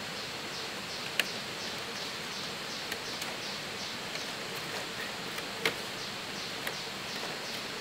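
Split bamboo strips clicking and ticking as a basket is woven by hand, with a few sharp clicks, the loudest about a second in and just past halfway. Under it a steady rushing hiss, and a quick run of short falling chirps, about three a second.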